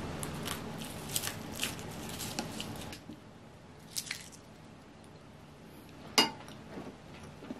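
Close-up eating sounds: soft chewing of okonomiyaki and light clicks of wooden chopsticks against a ceramic bowl and plate. About six seconds in, a single sharp knock as the glass mug is taken from the table.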